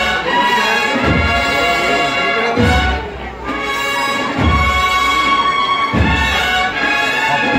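Brass band playing a slow Semana Santa processional march, with sustained brass chords and a deep beat about every second and a half.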